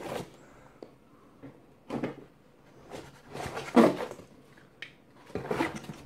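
A cardboard box being handled and opened: a few short scrapes and knocks of cardboard, with small clicks between them.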